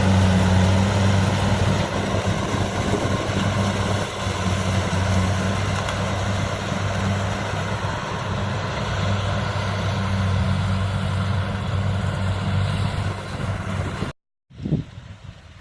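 Diesel engine of a rice-harvesting machine running steadily under load, a constant low hum under a wash of mechanical noise. It cuts off suddenly near the end, followed by a single brief thump.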